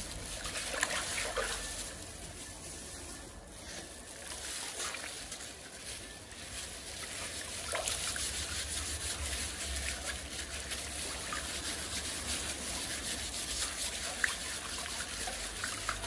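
Water sloshing, splashing and trickling in a large stainless-steel basin as a slab of cured pork (larou) is rubbed and scrubbed clean by hand with a scouring pad, a little louder in the second half.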